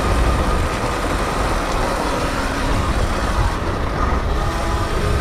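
Electric dirt bike being ridden through sand: steady wind rumble on the rider's microphone, with a faint high motor whine.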